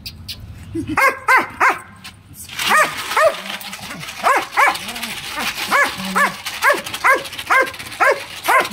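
A Malinois-type dog on a chain barking repeatedly: three quick barks about a second in, then a steady run of barks at about two to three a second.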